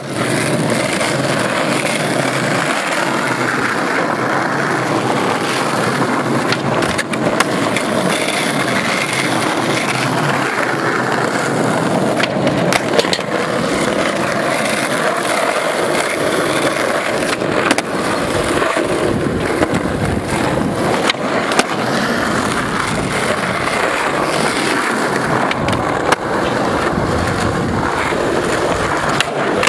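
Skateboard wheels rolling over rough asphalt in a steady rumble, with several sharp clacks of the board hitting the ground as flatground tricks are tried.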